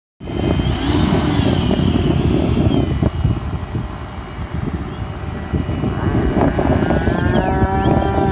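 A radio-controlled Stinger-90 model jet on its takeoff run along the runway, a steady jet rush under a heavy low rumble. About seven seconds in, a held sound with several steady tones comes in over it.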